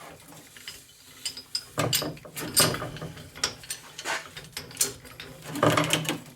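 Irregular metallic clicking and clanking of a hand-worked ratcheting mechanism, starting about a second in, over a low hum.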